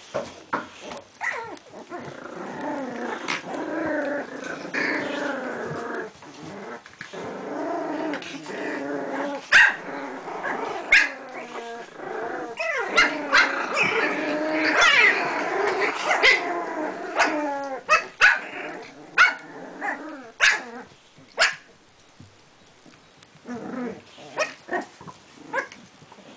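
Several puppies growling and barking in a long, continuous stretch of rough play, with many sharp clicks and knocks. The calls die away about five seconds before the end, leaving only scattered clicks.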